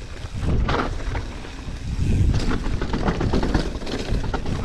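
Full-suspension mountain bike running fast down a rough dirt trail: a steady rumble of tyres over the ground, with frequent sharp knocks and rattles from the bike as it goes over bumps.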